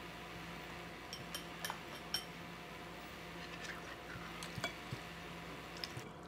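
Faint clinks of dishes and utensils, a few sharp ones between one and two seconds in and a few more near the end, over a low steady hum.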